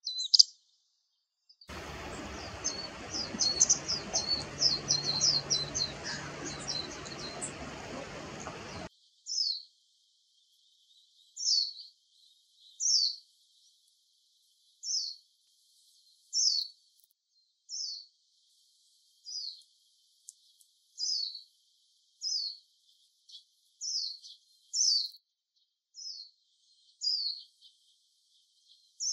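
Small songbird calls. First comes a few seconds of rapid, busy high twittering over a faint hiss. After that come single short high call notes, each sliding downward, repeated about every second and a half.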